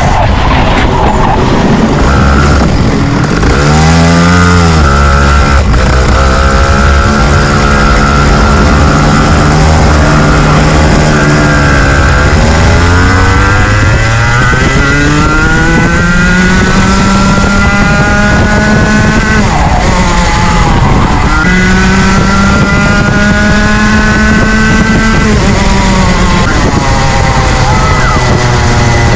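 Rotax Junior Max 125cc two-stroke kart engine at race speed. Its pitch climbs long and steadily, then drops sharply about four times as it slows for corners.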